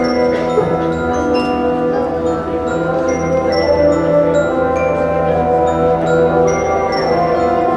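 Marching band playing slow, held chords, with ringing mallet-percussion and bell notes from the front ensemble sounding over them.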